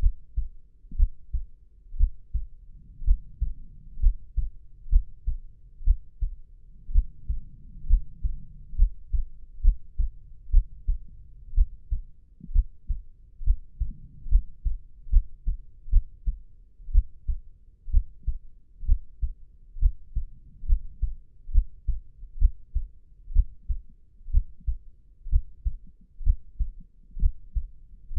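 Human heartbeat, a steady rhythm of low, soft thumps at about one beat a second.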